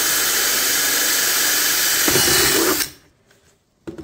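Ryobi cordless drill running, its bit cutting through the wall of a plastic bucket. The drill stops suddenly about three seconds in, and a single knock follows near the end.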